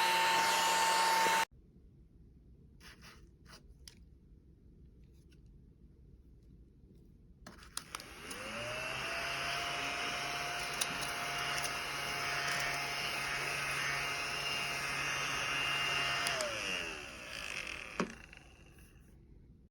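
A small handheld vacuum cleaner's motor switches on, its whine rising quickly to a steady pitch, runs for about eight seconds, then winds down as it is switched off, with a sharp click shortly after. At the very start another motor is running, and it cuts off abruptly.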